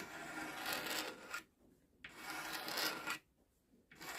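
A scraper drawn along a wooden tool handle, stripping the old surface: two long rasping strokes about a second each, with a third beginning near the end.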